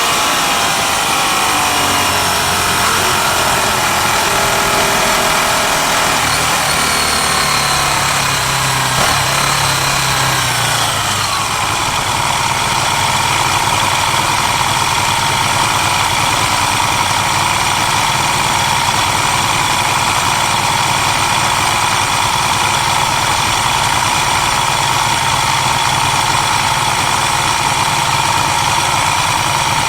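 Vintage racing motorcycle engines winding down with falling pitch for about the first eleven seconds, then settling into a steady idle.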